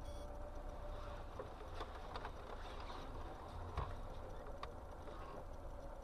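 Faint low rumble of road and engine noise heard inside a moving car's cabin through a dashcam microphone, with a few light clicks or knocks, the sharpest a little before four seconds in.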